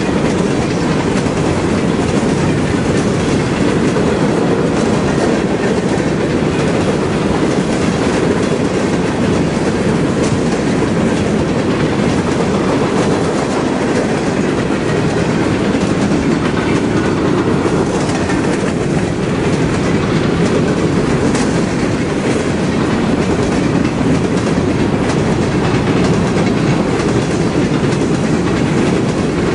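Covered hopper cars of a Union Pacific grain train rolling past close by: a steady, loud rumble of steel wheels on the rails.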